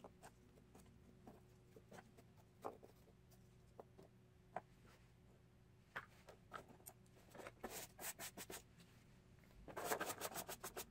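Faint, scattered light taps and scratchy rubbing from pieces of a cardboard model being handled, with a quick run of scratchy clicks a little past the middle and a louder flurry near the end.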